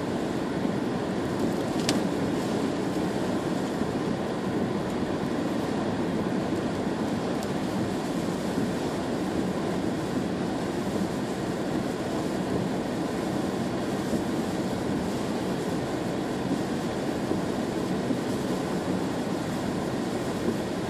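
Steady road noise heard inside a moving car: tyres running on wet tarmac under a low engine drone, with one short click about two seconds in.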